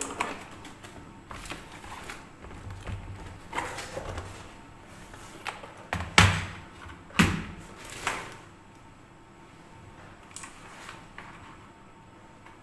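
Scattered knocks and clunks of a keyboard and its cable being handled and plugged into a PC, with two louder thumps about six and seven seconds in.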